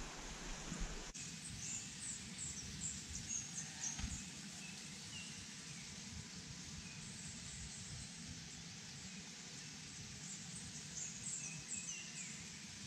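Outdoor ambience: a steady, even hiss with faint, high-pitched bird chirps coming in small clusters soon after the start and again near the end.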